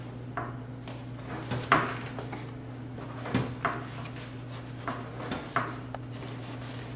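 Short tearing rasps, about half a dozen, as a car seat's upholstery cover is worked up off the foam and its Velcro strips pull apart, with fabric rubbing in between, over a steady low hum.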